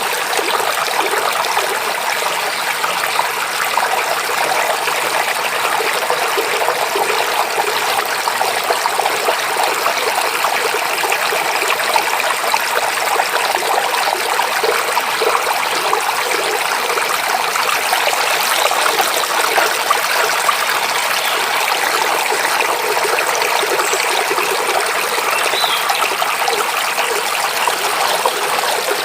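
Forest stream running steadily, a continuous babbling rush of water that does not let up.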